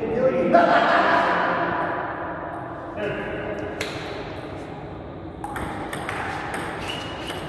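A ringing tone starts about half a second in and fades over a couple of seconds. Near the end, a table tennis rally begins, with the ball clicking off the bats and table.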